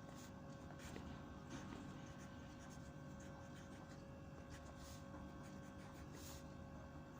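Quiet room tone with a steady low hum and a few brief, soft scratchy sounds, like a pen or pencil on paper.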